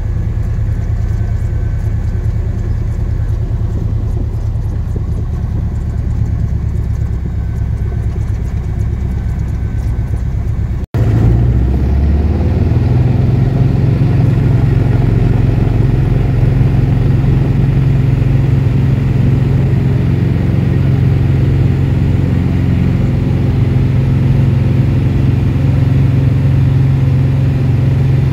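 Cessna 172's four-cylinder piston engine and propeller running, heard from inside the cabin. After a brief dropout about eleven seconds in, it runs louder with a steady low hum.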